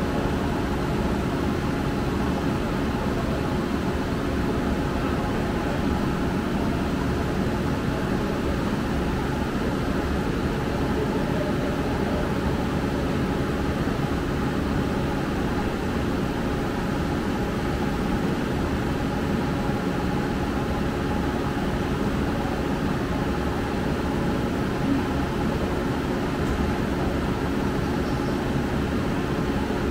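Steady mechanical drone with a few held tones, unchanging in level, from the machinery at work while the lifeboat is recovered up the slipway into the boathouse.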